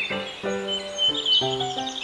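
Children's background music with a steady melody, overlaid with short, wavering high-pitched chirping calls.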